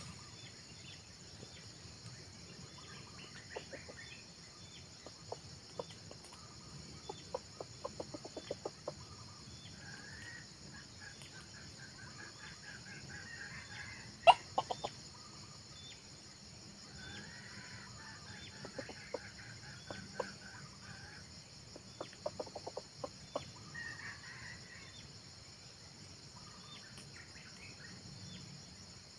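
Red junglefowl clucking in several short, rapid runs, with stretches of faster, higher chattering between them, over a steady high hiss. A single sharp click sounds about halfway through.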